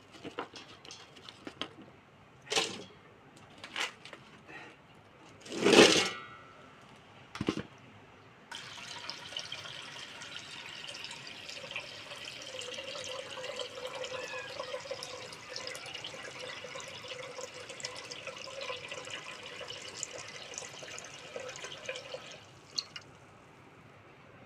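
A few separate knocks and clatters, the loudest about six seconds in with a brief ring, then water running steadily for about fourteen seconds before it stops shortly before the end.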